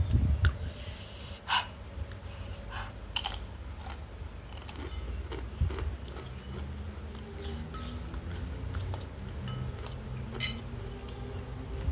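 A person chewing and biting food close to the microphone, with many irregular sharp, crisp clicks and crunches.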